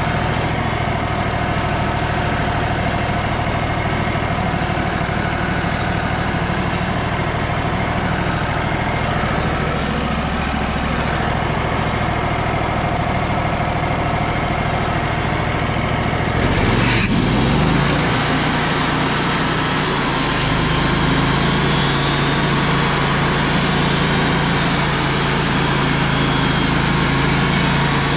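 Wood-Mizer LT35 band sawmill running, its engine and band blade going steadily through a pass along a small log. About 17 s in the sound changes abruptly, with the engine note shifting and the whole getting a little louder.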